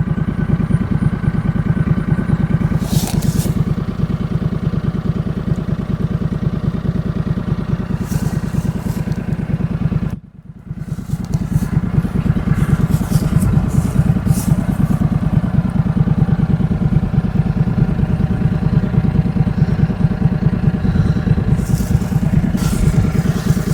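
Engine of a small farm vehicle running steadily, with a few light clatters and scrapes; the sound drops out briefly about ten seconds in.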